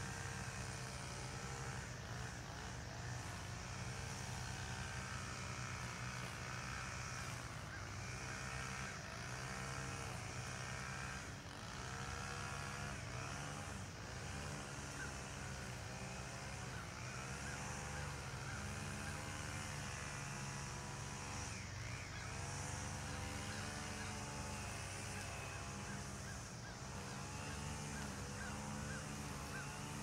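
An engine idling steadily, with a repeated wavering, rising-and-falling note over it.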